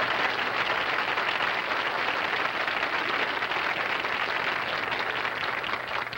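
Studio audience applauding, a steady wave of clapping that begins to fade away at the very end.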